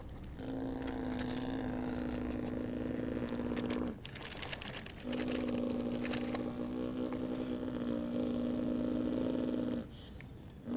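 Electric motor of a radio-controlled construction model running with a steady hum, stopping briefly about four seconds in and again near the end.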